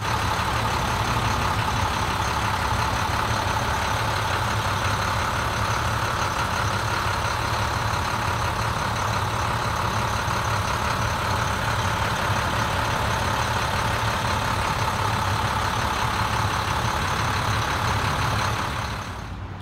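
International CXT's DT466 inline-six turbodiesel idling steadily, fading out near the end.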